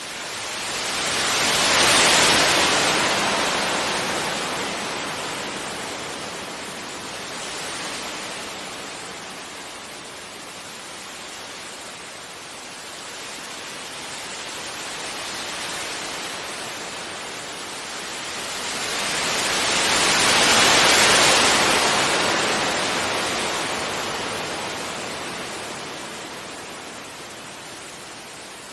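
Sea waves breaking gently on a beach: a steady hiss of surf that swells into two louder breakers, about two seconds in and again near twenty seconds, each washing out slowly.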